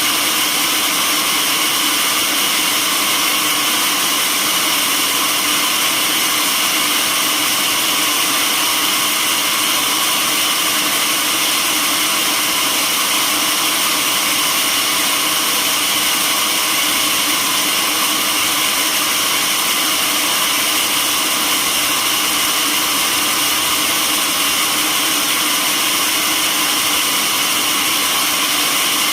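Sawmill machinery running steadily, a constant high whirring noise that does not change or break.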